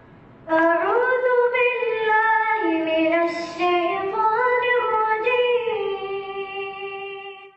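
A single high voice singing a slow, drawn-out melodic phrase with no instruments. It comes in about half a second in, holds and slides between long notes, and fades out near the end.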